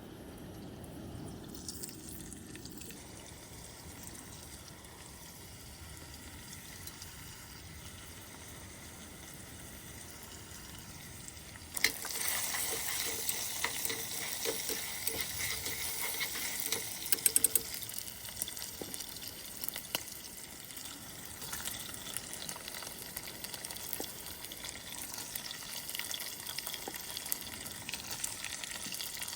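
Food frying in a pan: a sizzle starts suddenly about twelve seconds in and keeps going, with a few sharp clicks near the middle. Before it there is only a faint steady hiss.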